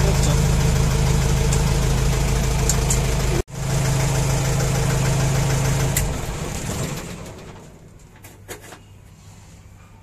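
Mahindra CJ3B jeep's DI diesel engine idling steadily, then switched off about six seconds in and running down to a stop over a second or so. The sound cuts out for an instant midway, and a faint click or two follows once the engine has stopped.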